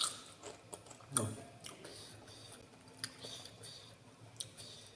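A person eating close to the microphone: quiet chewing with small mouth clicks and smacks, and a louder bite about a second in.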